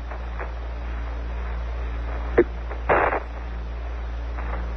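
Open Apollo 11 air-to-ground radio channel between callouts: steady radio hiss over a constant low hum, with a sharp click about halfway through and a short burst of static a moment later.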